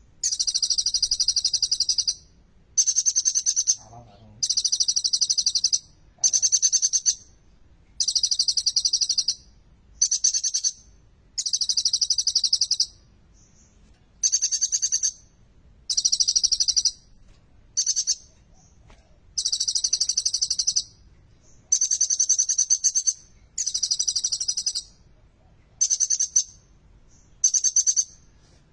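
A kolibri ninja sunbird singing: a string of high-pitched, rapid trilling phrases, each from half a second to about two seconds long, broken by short pauses.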